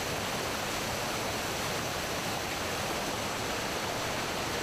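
Swollen stream rushing steadily over a rock ledge, a continuous even roar of fast water.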